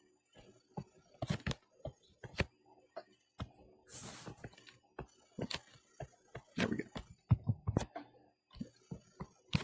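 Irregular light clicks and taps of a stylus on a tablet screen while lines are drawn, with a short hiss about four seconds in.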